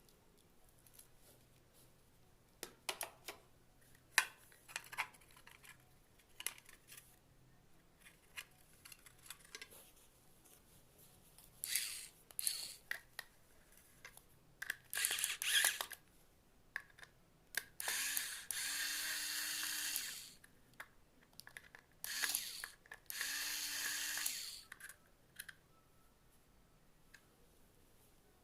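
Clicks and knocks of handling, with two runs of about two seconds each from a small handheld power tool, its motor spinning up at the start of each run.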